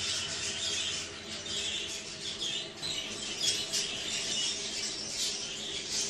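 A flock of budgerigars chattering: a dense, continuous twitter of short high chirps.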